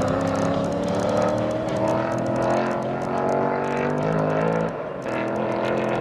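Drift car engine held at high revs, its pitch slowly climbing, with a brief drop in revs just before five seconds in before it picks up again.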